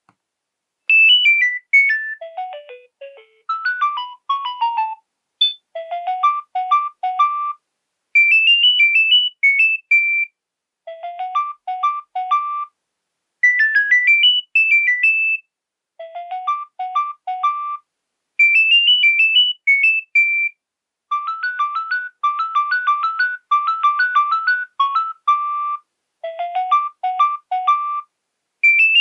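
Nokia 7210 mobile phone playing a polyphonic ringtone: a melody of short, high notes in repeating phrases with brief pauses between them. It starts about a second in.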